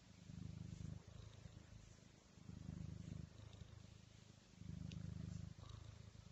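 A cat purring low and steadily, the purr swelling and easing with each breath about every two seconds.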